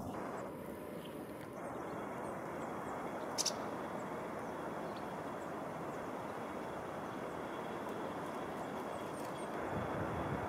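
Steady low outdoor background rumble, as of distant traffic, with a single sharp click about three and a half seconds in.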